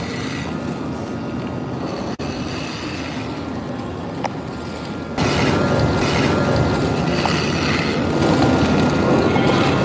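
Electric hair clippers buzzing steadily while cutting a man's hair, growing louder about five seconds in.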